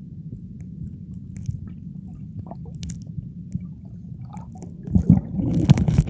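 Underwater sound heard through a submerged camera's housing: a low, muffled rumble with scattered faint clicks, turning into louder knocks and crackling about five seconds in.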